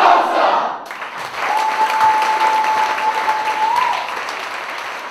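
Crowd chanting in rhythmic shouts, cut off about a second in and replaced by applause and cheering. A single long, steady, high held note rides over the applause, lifts slightly as it ends, and the clapping then fades out.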